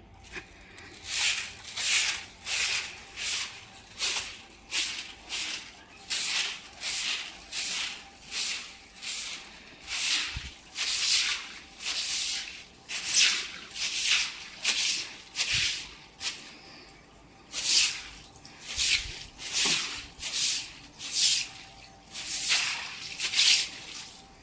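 Rhythmic swishing strokes, about one and a half a second, with a short pause about two-thirds of the way through.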